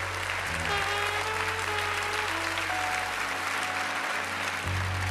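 Studio audience applauding over background music with a slow melody of held notes.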